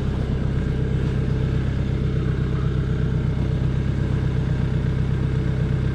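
Engine idling steadily.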